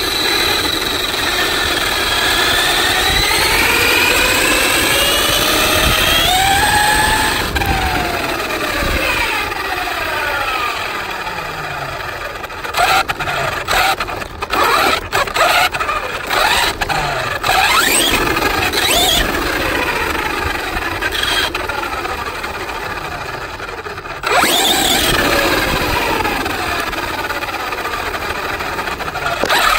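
Remote-control car's motor and drivetrain whining as it drives on asphalt, the pitch rising and falling with speed, over tyre and road noise. Near the middle it comes in a run of short throttle bursts with brief drops in between, and it gets louder again in the last few seconds.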